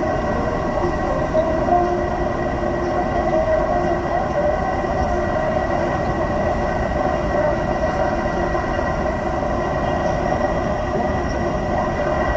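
Seoul Subway Line 8 first-generation train: a steady rumble with a steady whine of several held tones over it, unchanging in pitch.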